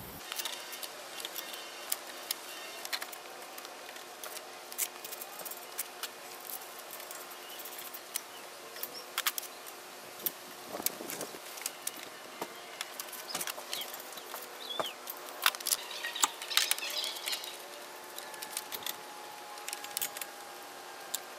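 Scattered light metallic clicks and clinks of hand-tightened AC line fittings and gauge hose couplers being handled and fitted, over a faint steady background hum.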